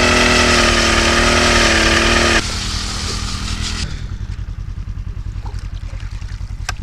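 Gas-powered ice auger engine running at high revs while drilling through lake ice. About two seconds in, the revs drop, and by about four seconds it settles into a steady idle.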